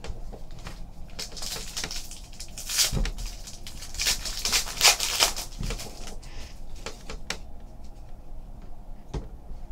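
A plastic trading-card pack wrapper crinkling and tearing open in the hands, with cards being handled and shuffled. The crinkling is loudest in the first half.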